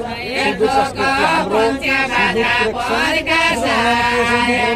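Nepali deuda folk singing: voices chanting a verse in long held, wavering notes.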